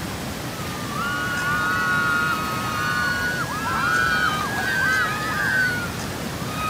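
Rushing white water at a river weir, with several rafters screaming in long, high cries from about a second in until near the end as their raft slides down the weir's chute into the churning water.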